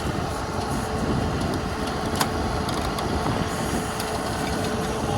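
John Deere 2038R compact diesel tractor running steadily while working its 270B backhoe, with a thin steady whine above the engine rumble and a single sharp click about two seconds in.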